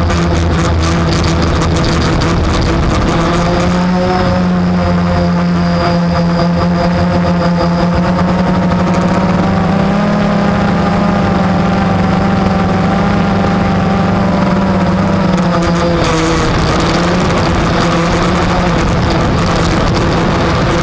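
Blade 350 quadcopter's motors and propellers buzzing steadily in flight. The pitch rises slightly about four seconds in and again around ten seconds, then drops back about sixteen seconds in.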